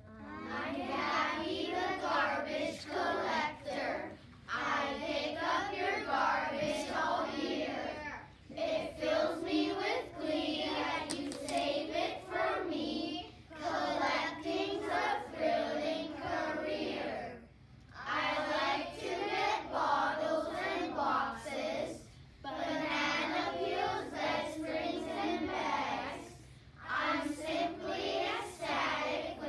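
A class of children reciting a poem aloud in unison, line by line, with short breaks about every four seconds.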